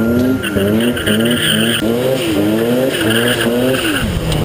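Mazda RX-7 race car's twin-rotor rotary engine revving hard, its pitch climbing and falling back again and again, with tyre squeal from the car sliding. Near the end the revs drop away sharply.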